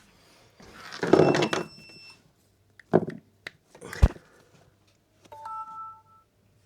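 A phone being handled and a charging cable plugged into it: rustling, then a few sharp clicks and a knock. About five seconds in, a short two-note electronic tone from the phone as it starts charging from the new USB socket.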